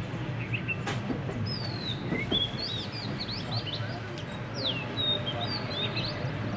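Many birds chirping with short, quick, sliding whistled calls, over the steady low rumble of the train running.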